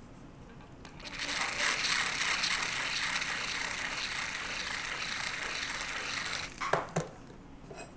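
Burr in a flex shaft handpiece grinding the inside of the hole in an enameled pendant, enlarging it so a tubing rivet fits. A steady, gritty hiss starts about a second in and stops after about six seconds, followed by two short clicks.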